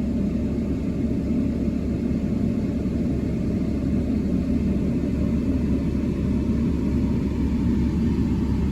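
Steady low rumble of a running vehicle engine, even in level throughout.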